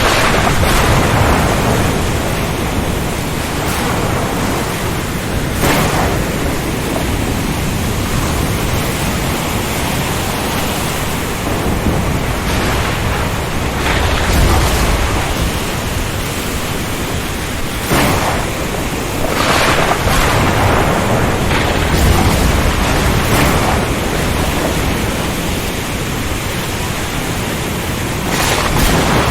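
Storm at sea: steady heavy rain and strong wind over a deep, continuous rumble of thunder and surf, broken by several brief louder bursts.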